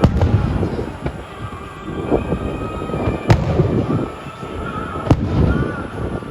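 Fireworks going off: three sharp bangs, near the start, about three seconds in and about five seconds in, with crackling between them.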